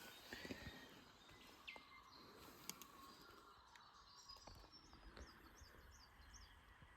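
Quiet outdoor ambience with faint bird calls: a quick run of about six short, high chirps in the second half, with a few soft clicks earlier.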